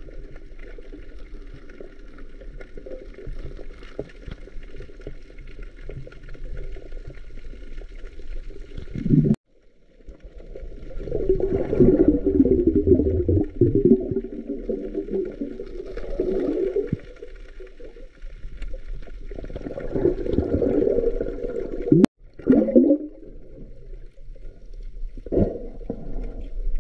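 Muffled underwater sound heard through a camera submerged in the sea: a steady low hiss and hum, then louder gurgling and churning of water, with short bubbly bursts near the end. It cuts out abruptly twice, at about nine seconds and again near twenty-two seconds.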